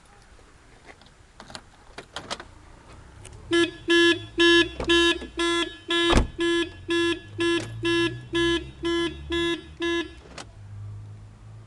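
BMW E34's factory alarm sounding: a loud horn-like beep repeating a little over twice a second for about six seconds, then stopping. A few clicks come before it and one sharp click lands midway, with a low motor hum underneath.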